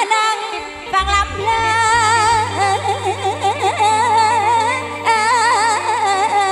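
Live Thai luk thung–mor lam band music with a woman singing a wavering, ornamented melody into a microphone. A deep held bass comes in about a second in.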